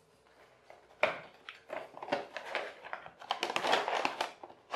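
A cardboard toy box with a clear plastic window being picked up and handled, crinkling, rustling and scraping in hands from about a second in, busiest in the later part.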